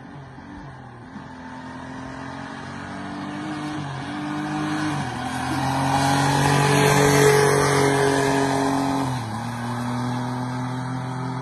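Twin-turbo golf cart's engine accelerating hard past the listener. Its pitch climbs and drops back several times, and it is loudest about seven seconds in as it goes by, then carries on at high revs.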